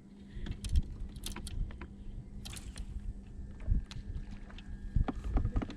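Scattered knocks and clicks from gear on a fishing kayak, over a steady low rumble.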